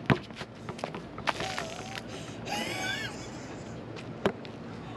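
Basketball striking the concrete once with a sharp slap right at the start, followed by a few light clicks and knocks. A brief high-pitched wavering voice is heard near the middle, and another sharp knock comes about four seconds in.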